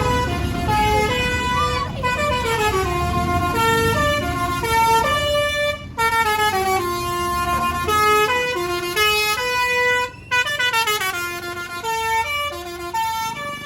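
A bus's basuri telolet horn playing a melody of held notes that step up and down, pausing briefly twice, with a low rumble underneath.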